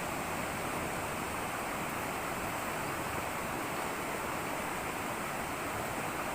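A river flowing, a steady rushing of water with no breaks.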